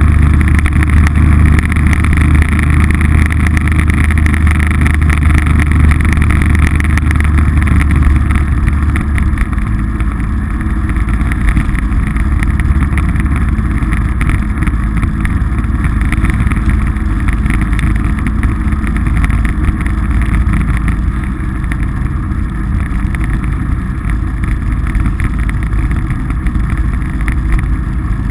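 Polaris RZR side-by-side engine running steadily under way. Its strong low drone eases off about nine seconds in, and the engine runs a little quieter after that.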